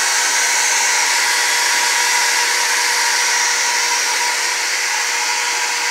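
Shop vacuum running steadily, its motor giving a constant high whine.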